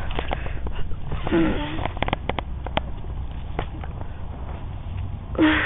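Irregular crackling of dry leaves and twigs underfoot, with breathing close to the microphone: a breathy sniff or exhale about a second in and again near the end.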